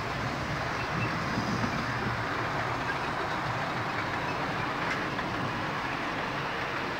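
OO gauge model trains running on the layout: small electric motors whirring and wheels rolling over the rails, a steady whir with no break.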